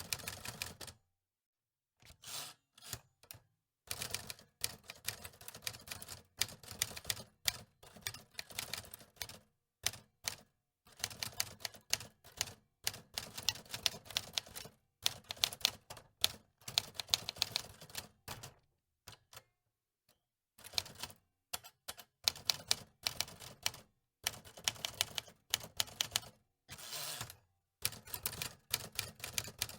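Antique typewriter being typed on: rapid runs of key strikes clacking in bursts of a few seconds, broken by short pauses.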